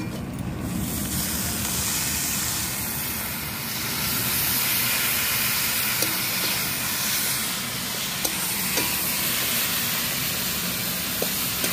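Chopped taro hitting hot oil in a large wok and frying with a steady sizzle that swells about a second in, while a spatula stirs it with a few light clicks against the pan.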